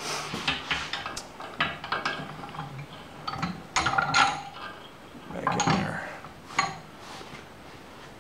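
Metal clinking and rattling as a steel sickle-bar blade strip with riveted cutting teeth is handled and clamped in a bench vise, the vise handle being turned. The clicks and knocks are uneven, with a burst of them about four seconds in and another near six seconds.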